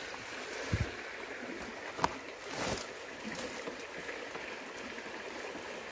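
Steady rush of running water, with a few short knocks and a rustle as a wire-mesh cage trap and its plastic tarp cover are handled. The sharpest click comes about two seconds in.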